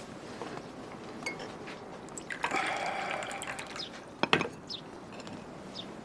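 Liquid being poured for about a second, followed by two sharp knocks close together.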